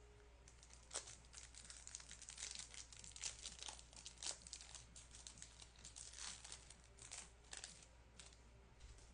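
A trading-card pack wrapper being torn open and crinkled: a quiet run of quick, sharp crackles that starts about a second in and thins out near the end.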